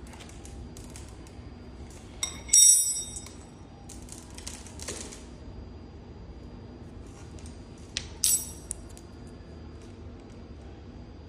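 Small metal parts or tools being handled and set down during repair work. Two sharp, ringing metallic clinks, one a few seconds in and one about two-thirds of the way through, with lighter clicks and rustling between them.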